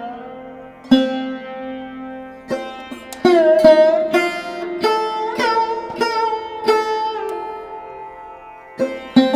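Background music: a plucked string instrument plays a slow melody of separate notes, several of them bending in pitch as they ring.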